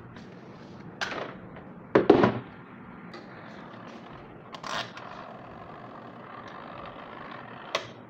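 Short knocks and clatters from handling the washing machine's parts as they are put back together. There is a knock about a second in, a louder double knock about two seconds in, another knock near five seconds, and a sharp click just before the end.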